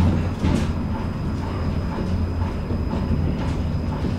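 A tram running along its rails, heard from inside the car: a steady low rumble of motors and wheels, broken by a few sharp clacks as the wheels pass over rail joints.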